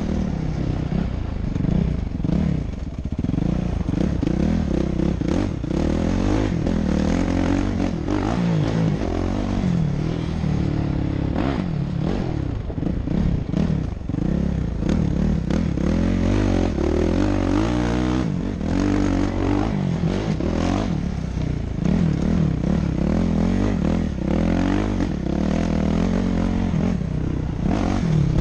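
Motocross bike engine, recorded on board, revving up and falling back again and again as the bike is ridden hard round a dirt track.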